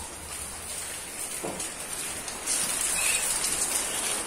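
Heavy rain pouring steadily, heard from inside a house; it grows louder about two and a half seconds in.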